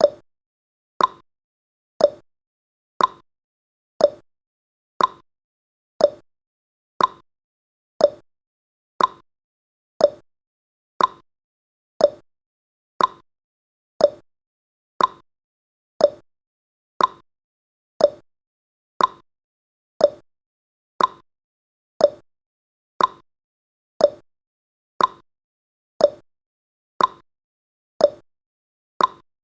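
Countdown timer's ticking sound effect: one short, sharp tick each second, evenly spaced, with silence between ticks.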